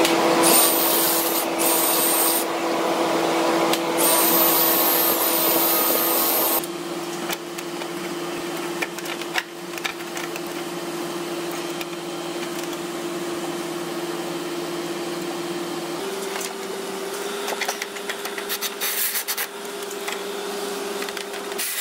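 A cordless drill runs steadily with a motor hum and a high whine as it drills out a seized, broken manifold stud in a turbocharger housing; this is loudest for the first six or seven seconds. After that a quieter steady hum continues and steps up slightly in pitch near the end.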